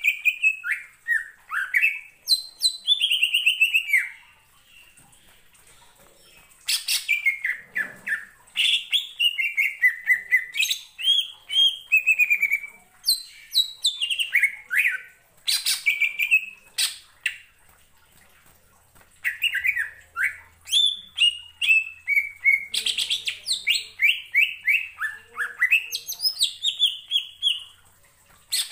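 Male green leafbird (cucak ijo) singing: bouts of varied whistles and rapid chirping notes, many of them falling in pitch, broken by pauses of about two seconds.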